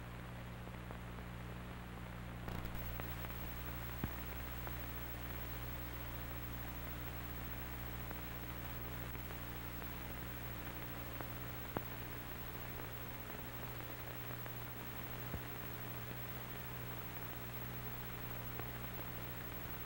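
Steady hiss and low mains hum from the soundtrack of an old film transfer, with a few faint clicks. The hiss brightens slightly about two and a half seconds in.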